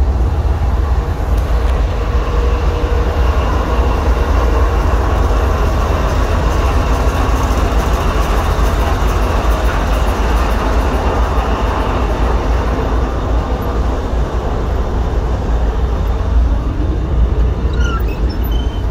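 GE ET44AH locomotive's V12 diesel engine running, heard from the unit's outside walkway: a loud, steady, heavy rumble. A few short clicks near the end at the cab door.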